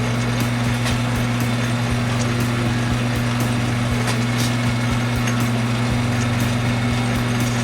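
Atlas metal lathe running steadily: an even electric motor hum with the lathe's drive noise and faint irregular ticks.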